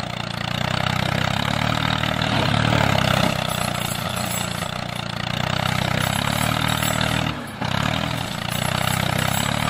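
An engine running steadily with a low, even hum, its loudness swelling and easing, with a short drop about seven and a half seconds in.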